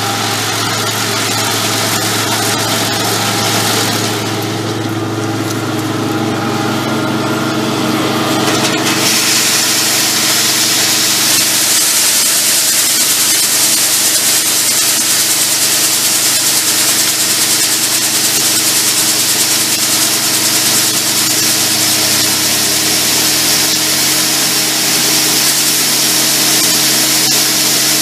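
Farm machinery running steadily during corn harvest: a continuous engine drone under a loud mechanical rushing hiss that swells about nine seconds in.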